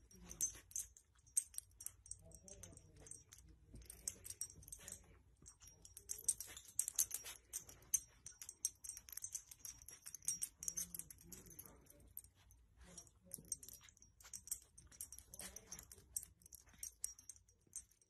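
Faint rustling of a soft blanket and many small irregular clicks as a small dog noses the blanket about.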